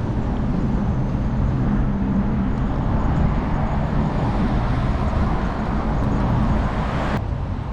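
Steady rushing wind noise on the microphone of a moving bicycle, mixed with rumbling tyre and road noise. It cuts off abruptly near the end.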